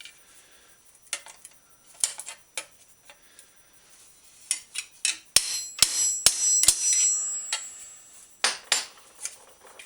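Hammer driving a brass punch onto a two-piece rapid rivet on a steel bicycle fender stay resting on an anvil, re-pounding a rivet that has a small tear. A few light taps, then four sharp ringing blows in quick succession about halfway through, and two more strikes near the end.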